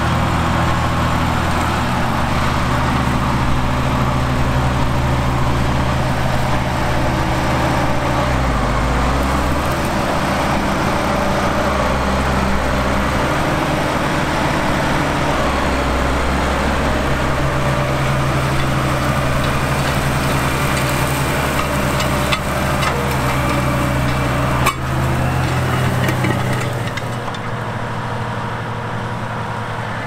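Diesel engine of a Case IH Quadtrac tracked tractor running steadily under load while pulling a disc harrow through stubble. A single sharp click sounds about 25 s in, and the engine sound drops slightly near the end.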